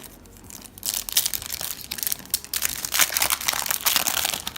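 Foil trading-card booster pack crinkling as it is handled and torn open. A dense run of crackles starts about a second in.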